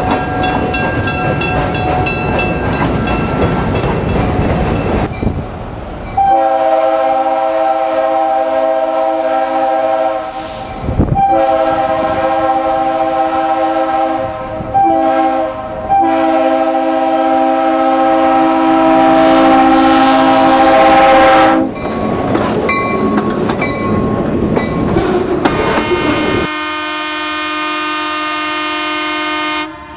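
A train rumbling along, then a diesel locomotive's air horn sounding a chord in two long blasts, a short one and a final long one, the grade-crossing signal, followed by the engine and wheels rumbling past. Near the end a second locomotive's horn sounds one steady chord.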